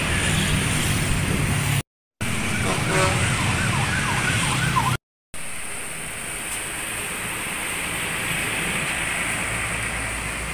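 Road traffic with bus and car engines running, cut off twice by short silences. In the middle stretch a siren-like horn warbles up and down several times over the traffic, and in the last part a coach engine runs steadily as the bus moves off.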